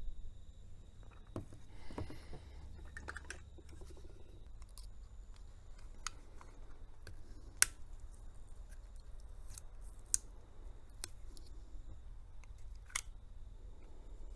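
Scattered small, sharp clicks and scrapes of a metal tool working at the battery and its metal retaining strap inside a Casio Baby-G watch.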